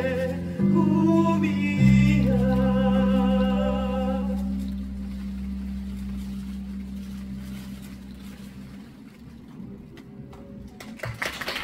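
Male voices holding the song's final notes with vibrato over a sustained low chord of backing music, which fades away over several seconds. Clapping starts right at the end.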